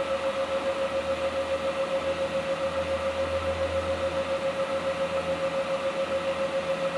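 Chevalier FM-4VKH 3 HP variable-speed vertical milling machine running: a steady whine over a low hum, with a fast, even pulsing in level.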